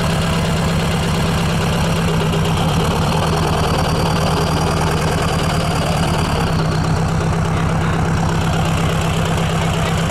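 Off-road 4WD pickup's engine running steadily at idle with an even pulse while it blows thick white smoke from the exhaust: engine oil getting out through the tailpipe, which the owners put down to an internal failure that lets oil into the cylinders after hard revving.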